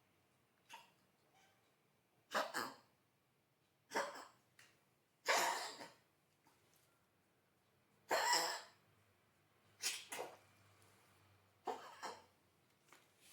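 A dog coughing: about seven short, breathy coughs, each under a second, coming every one and a half to three seconds.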